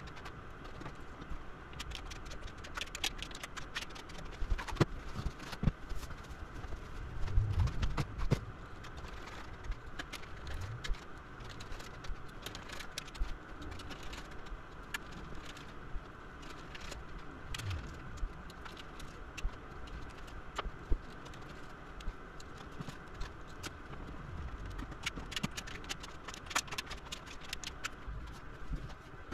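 Scattered clicks, clinks and knocks of hand tools and metal battery-pack parts being handled, with occasional low thumps, over a steady background hum.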